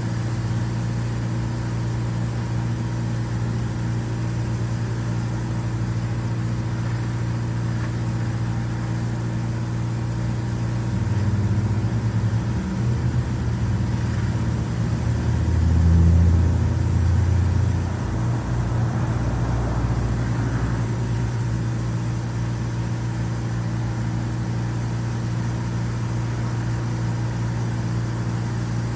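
An engine running steadily, its pitch shifting and its sound swelling briefly in the middle, as under a change of load or revs.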